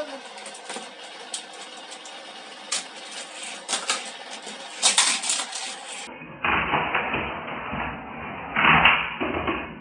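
Die-cast toy cars clicking and clattering on a plastic Hot Wheels track, a scatter of sharp clicks over the first six seconds. After that a steadier rushing noise with low rumble takes over, swelling near the end.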